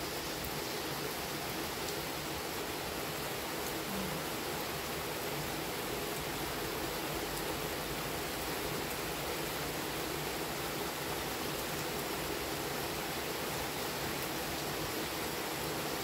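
Steady rain falling, heard as an even hiss.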